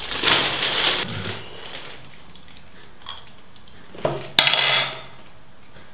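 Paper towel rustling and crinkling for about a second. About four seconds in, a sharp clink and a brief clatter, like cutlery or a glass jar set down on a table.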